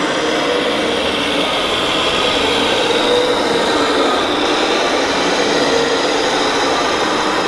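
Steady whine of small electric motors from radio-controlled model vehicles driving on a track, with faint wavering tones over a constant din.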